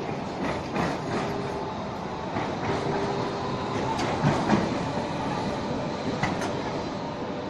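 Zagreb ZET tram running on street track, its wheels clicking and knocking irregularly over the rails, over a steady rumble with a faint whine.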